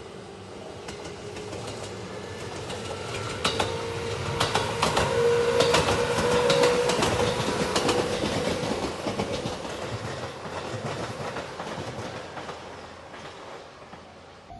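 Two-car electric sightseeing train La Malle Setouchi passing close by, its wheels clacking in rapid runs over the rail joints. The sound builds to a peak about six seconds in and then fades away as the train recedes.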